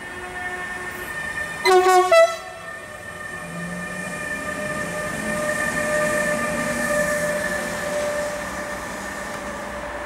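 Bombardier TRAXX class 253 electric locomotive sounding its horn in three short blasts about two seconds in, then passing with a steady whine that is loudest as it goes by and eases off near the end.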